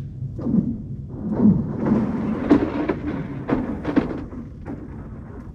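Lake ice cracking and booming: a run of rumbling thuds, sharp cracks and eerie sliding pitch sweeps lasting about four seconds, the sound of thin ice shifting and splitting. It is spooky.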